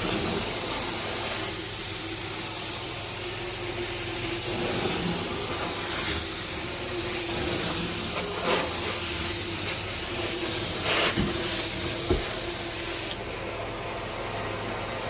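Carpet-cleaning machine running over carpet: a steady hiss with a low hum, broken by a few sharp clicks or crackles. The hiss drops a little about two seconds before the end.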